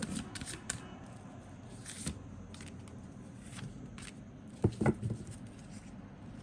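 Tarot cards and small objects handled on a table: scattered light clicks and rustles, with a couple of louder knocks about five seconds in.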